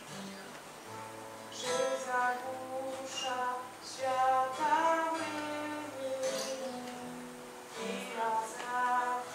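Acoustic guitar strummed under a singer's voice holding long, drawn-out notes, with no clear words.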